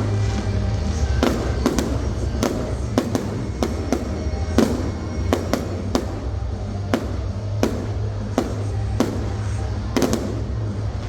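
Aerial fireworks bursting in an irregular string of sharp bangs, about two a second, some in quick doubles. Music plays steadily underneath. The bangs stop shortly before the end.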